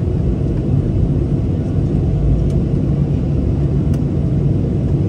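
Steady low rumble inside the cabin of a Boeing 737-800 with CFM56 engines, heard from a window seat over the wing as the jet rolls onto the runway.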